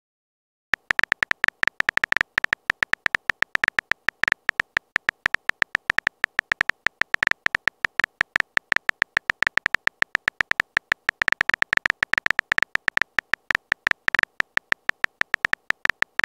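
Phone on-screen keyboard typing sounds as a message is typed: rapid short clicks, each with a high pitched tick, several a second, starting about a second in.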